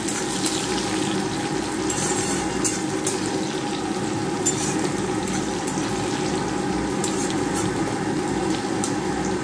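Chopped tomato and fried onions sizzling in hot mustard oil in a wok, stirred with a spatula that scrapes the pan now and then.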